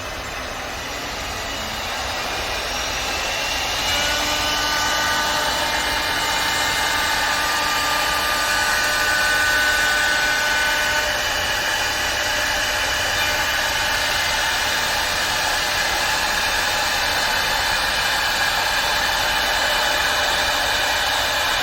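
CNC wood lathe running its automatic cycle, its motor-driven cutting spindle working the wood with a steady high whine over a noise hiss. It grows louder over the first few seconds, then holds steady.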